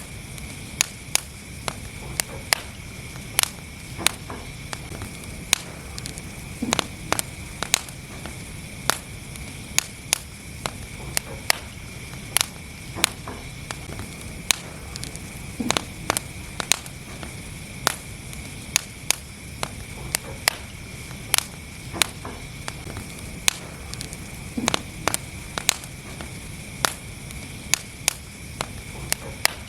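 Wood fire burning in a fireplace: a steady low rumble of flames under irregular sharp crackles and pops, several a second.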